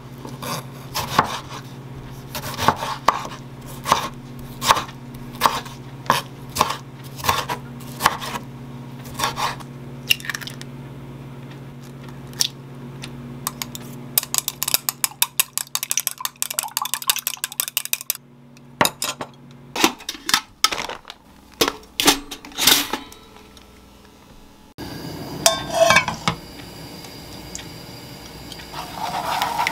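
Chef's knife cutting a tomato on a wooden chopping board, regular knocks about every second or less for the first ten seconds. About halfway through, chopsticks beat eggs in a glass bowl with rapid clicking. Near the end, the beaten eggs go into a hot nonstick frying pan and start to sizzle.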